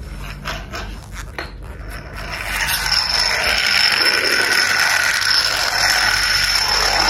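Small plastic toy monster truck's gear motor: a few light clicks, then from about two and a half seconds in a loud, steady whirring with a high whine as the toy runs across a hard stone floor, cutting off suddenly near the end.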